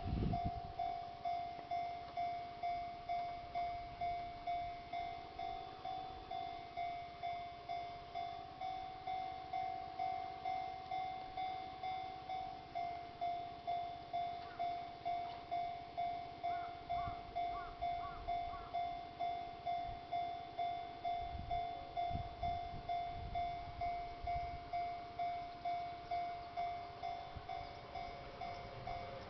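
Japanese railway level-crossing warning bell ringing steadily, about one and a half evenly spaced dings a second: the signal that a train is approaching.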